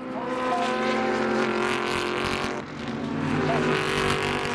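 Several Super GT race cars running hard through a corner, their engine notes overlapping as they pass, with pitch shifts as the drivers change gear.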